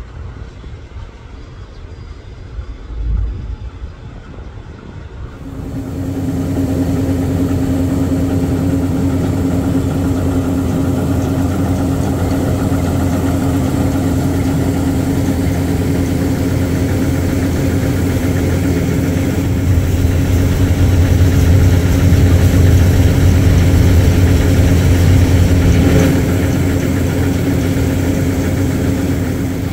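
Transnet diesel-electric locomotive engine running close by with a steady, deep drone. It comes in loud about five seconds in and grows a little louder for a few seconds near the end.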